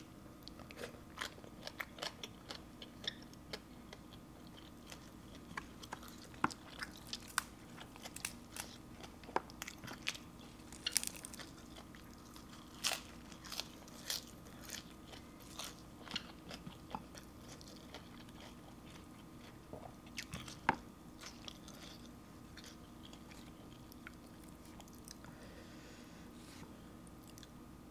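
Close-miked crunching and chewing of spicy green papaya salad and raw vegetables, with many sharp, crisp bite clicks that thin out over the last several seconds, over a faint steady hum.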